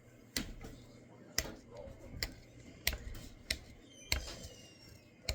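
Irregular sharp clicks and taps, about seven over five seconds, with faint voices in the background.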